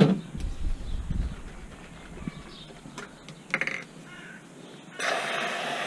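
A few light knocks and handling sounds, then, about five seconds in, an aerosol can of catering whipped cream starts spraying onto an ice cream sundae with a sudden, steady hiss.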